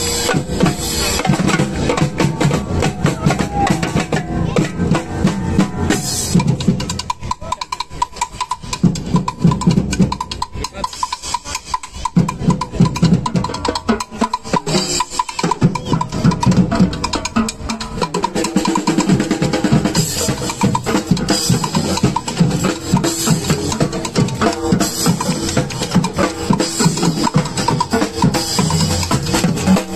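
A troupe of drummers playing a fast, driving rhythm on strapped-on marching drums and bass drums, dense with rapid stick strikes. The drumming eases off briefly about seven seconds in and again around fourteen seconds in, then picks back up.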